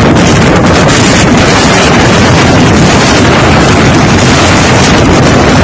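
Strong wind blasting a phone's microphone: a loud, constant rushing noise with no let-up.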